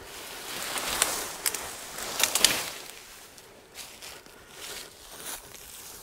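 Leafy cut branches and brush rustling as they are handled, with a few sharp snaps in the first half; the rustling dies down after about three seconds.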